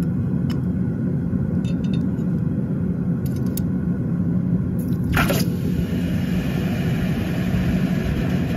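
A hot cast metal ingot dropped from tongs into a steel bowl of water: a splash about five seconds in, then the sizzling hiss of the quench for a few seconds. A steady low rumble runs underneath.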